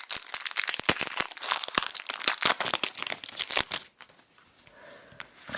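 Foil Pokémon trading card booster pack wrapper crinkling as it is handled and torn open, a dense crackle that stops about four seconds in.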